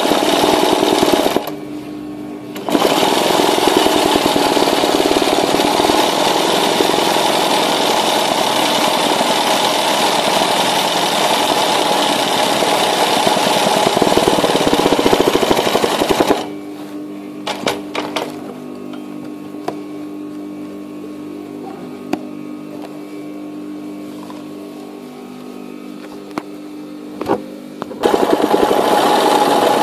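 Electric sewing machine stitching free-motion embroidery, running fast in bursts: a short run, a brief stop, then a long run of about fourteen seconds. It then stops for about ten seconds, leaving a lower steady hum and a few clicks, and starts again near the end.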